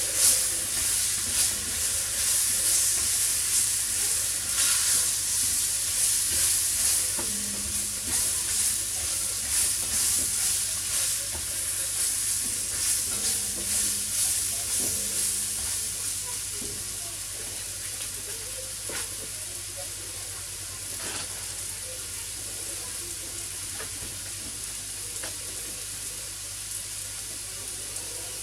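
Chopped onions, mushrooms and pepper with curry spices sizzling in a Dutch oven and being stirred, the spoon scraping the pot bottom. The vegetables are frying off their water. The stirring stops after about 16 seconds, and a quieter, steady sizzle carries on.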